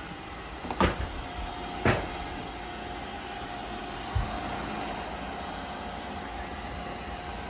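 Bagotte BG700 robot vacuum running with a steady hum and a constant whine. Two sharp knocks come about one and two seconds in, and a softer thump comes around four seconds.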